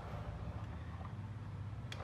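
A vehicle engine running steadily with a low rumble, and a single sharp click near the end.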